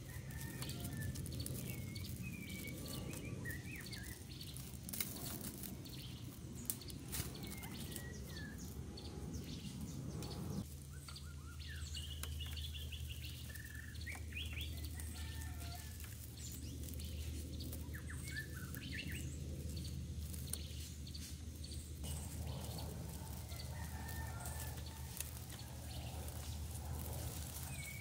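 Birds chirping and calling over a low steady hum, with a few sharp clicks as bamboo sticks and plastic tying strap are handled.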